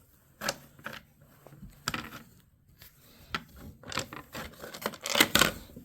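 Scattered clicks, scrapes and rustles of hands working on a small generator, with the loudest rasping burst near the end; no engine is running.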